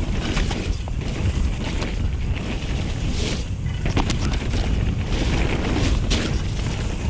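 Wind buffeting the camera microphone as a mountain bike rolls fast along a dirt trail, with tyre rumble and scattered sharp clicks and rattles from the bike going over the ground.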